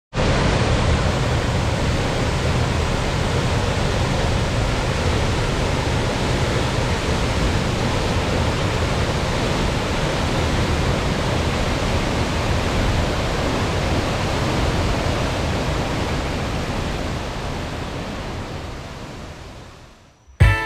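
Waterfall, a steady roar of falling water, fading out over the last few seconds.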